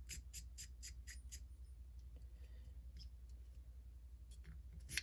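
Faint, quick run of light clicks, about four a second, for the first second and a half, then a few scattered ticks and a sharper click near the end: small metal parts and tools being handled as a motorcycle carburetor is put back together.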